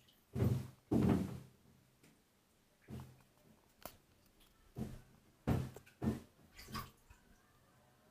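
A child splashing bathwater in a bathtub: a series of short splashes. The two loudest come close together about half a second and a second in, with smaller ones scattered after.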